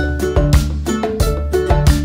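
Upbeat instrumental background music with a steady beat, bass and plucked strings, in a Latin, salsa-like style.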